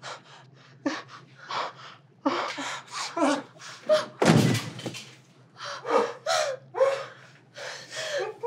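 A person's panting breaths and gasps, with one loud slam about four seconds in.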